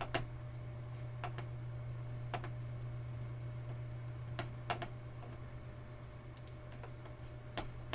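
About ten light clicks at irregular intervals, typical of a computer mouse and keyboard being used, over a steady low hum.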